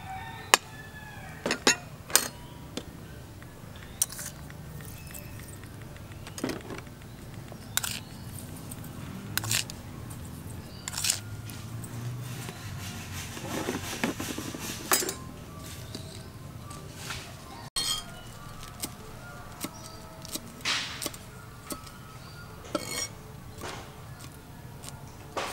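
Scattered clinks and taps of a spoon and bowl against a metal cooking pot, then, after a cut, a knife tapping on a thick wooden cutting board as herbs are chopped.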